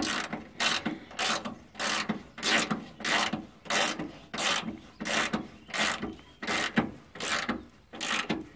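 Socket ratchet wrench clicking in short back-and-forth strokes, about three every two seconds, as it runs down the nut on the top mounting bolt of a new rear shock absorber.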